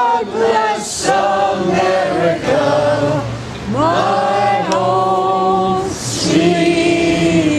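A group of people singing a song together, holding long notes that change about once a second.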